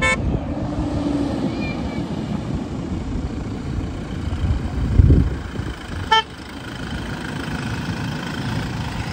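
Off-road rally pickup truck's engine running hard on a sandy track, getting louder to a peak as it passes close about five seconds in. A short vehicle horn toot sounds at the very start and again about six seconds in.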